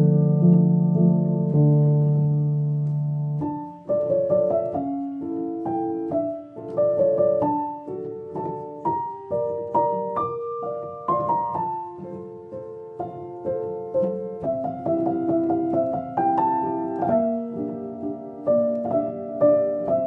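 Background piano music: held chords at first, then from about three and a half seconds in a gentle melody of separate notes over chords.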